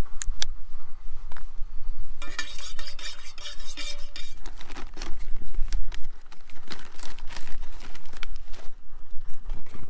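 Metal utensil clinking and scraping against a camping cooking pot while food is stirred, with scattered sharp clinks and a ringing scrape lasting about two seconds near the start. A low steady rumble runs underneath.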